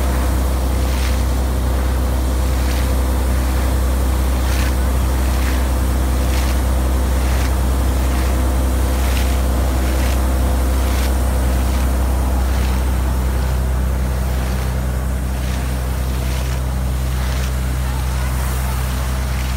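Motor water pump running with a steady drone while water gushes out, with a regular splash about once a second as the pipe is worked in the muddy water.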